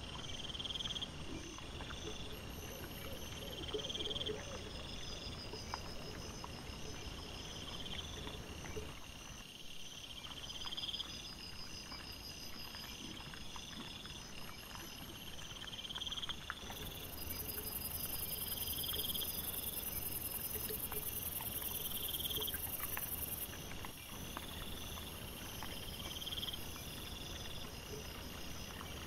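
Night-singing insects chirping in regular pulsed phrases, about one a second, with several callers at different pitches. A higher steady buzz joins for several seconds past the middle, over faint scattered clicks and rustles.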